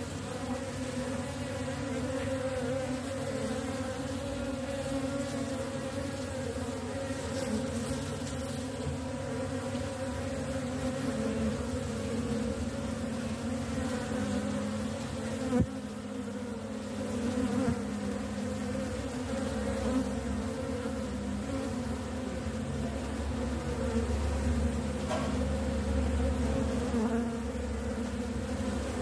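Honeybees in an opened hive buzzing steadily, a continuous droning hum. One sharp click comes about halfway through.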